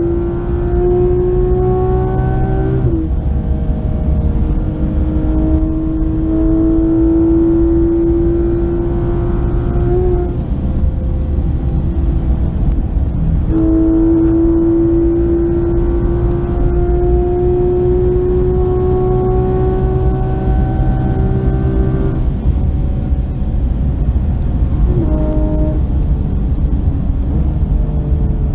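Inside the cabin of a 2016 Porsche 911 GT3 RS on track: its naturally aspirated flat-six engine climbs steadily in pitch through long pulls, with a sharp drop at an upshift about three seconds in. The engine note falls away about ten seconds in and again about twenty-two seconds in, with a brief rise near the end. Constant low road and tyre rumble runs underneath.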